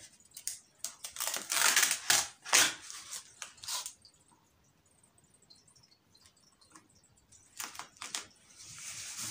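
Crinkling and rustling as a sheet of self-adhesive EVA felt and a cardboard panel are handled, in several noisy bursts with clicks over the first four seconds. After a quiet stretch, brief rubbing near the end as the felt is pressed down onto the cardboard.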